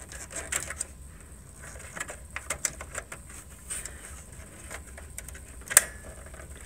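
A RAM stick being worked back into a desktop memory slot: small plastic clicks and taps, then one sharp click near the end as the slot's retaining clips snap shut on its sides, a good sign that the module is seated.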